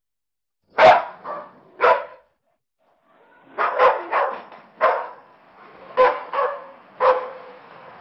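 AI-generated dog barking from the AudioGen text-to-audio model: three barks, a short pause, then a run of about seven more.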